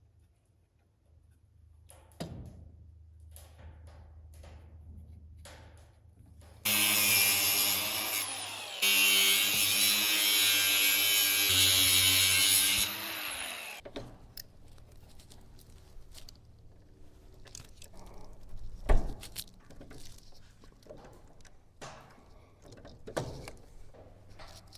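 A handheld power tool motor runs in two bursts, about two seconds and then about four seconds, starting some seven seconds in. Light handling clicks and knocks come before and after, with one sharper knock later on.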